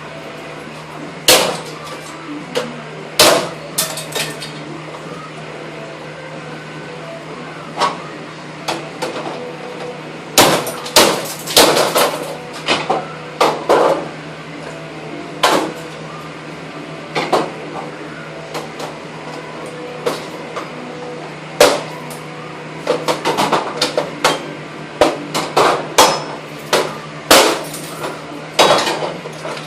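Irregular loud knocks and cracks as an inkjet printer's plastic parts are struck and broken apart, some single and some in quick clusters, over a steady low hum.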